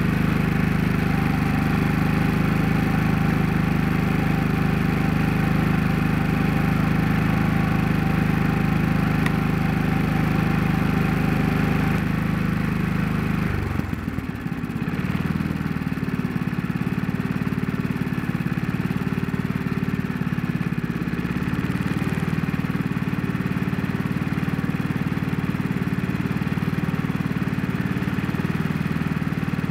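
Generac iQ3500 inverter generator's single-cylinder engine running steadily while powering a blower fan. About halfway through, the sound dips briefly and the engine settles into a different steady note as it changes speed with the load.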